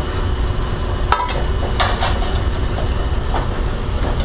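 Steady low rumble of a commercial kitchen's ventilation and gas range, with a sharp ringing clink about a second in and a short clatter near two seconds as a plate is lifted off pressed potatoes in a metal sauté pan.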